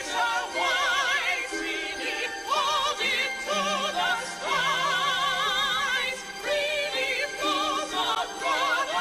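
Operatic singing with a wide vibrato on held notes, moving from note to note, over music.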